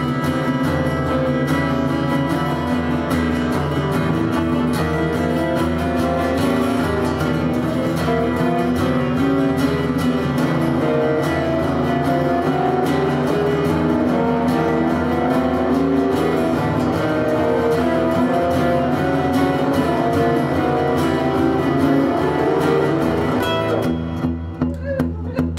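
Acoustic guitar played live, chords strummed steadily. Near the end the playing thins out to separate plucked notes, about two a second.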